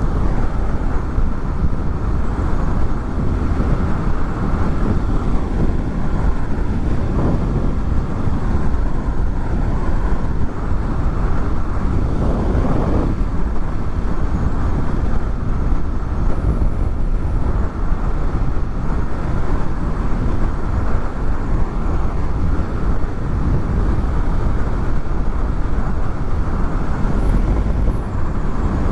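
Honda VFR800's V4 engine running steadily at a cruise under heavy wind and road noise, picked up by helmet microphones fitted with furry windshields. The level stays even, with a few faint changes in engine pitch.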